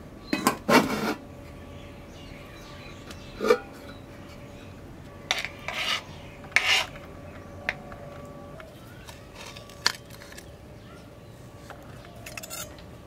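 Metal cookware scraping and clinking: a ladle and spatula scraping against an aluminium pot and its cover, in several short rasping scrapes and a few sharp clinks as the curry is uncovered and served into steel bowls.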